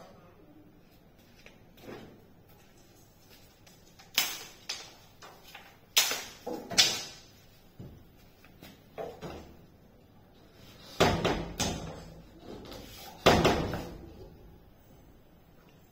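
Irregular wooden knocks and bumps as plywood door panelling is handled and fitted, the loudest coming in clusters around four, six to seven, eleven and thirteen seconds in.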